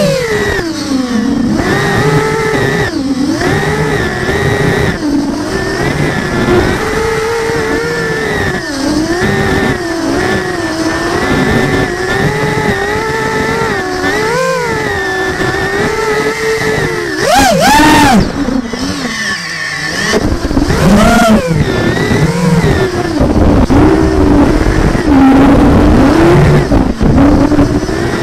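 Multirotor drone motors and DAL 6045 tri-blade propellers whining, the pitch rising and falling constantly with throttle as it weaves between trees, with quick sharp surges about two-thirds of the way in. A rougher rushing noise joins the whine in the last third.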